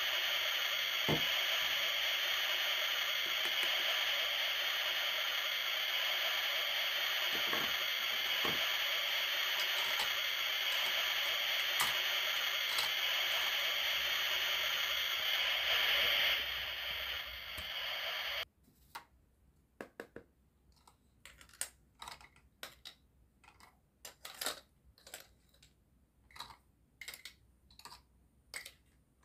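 A steady sizzling hiss runs for most of the first two-thirds and cuts off abruptly. After that come light, separate clicks and taps of plastic toy food skewers being handled and set down on a toy grill and tray.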